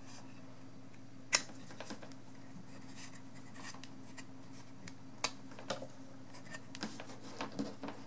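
USB cable plugs being pulled from the ports of a USB cable tester board and the cable handled. A sharp click about a second in, another about five seconds in, and lighter clicks and scrapes after, over a faint steady low hum.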